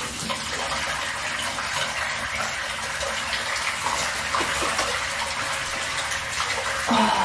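Bathtub filling from its tap: a steady rush of running water into the tub, from a supply with low water pressure.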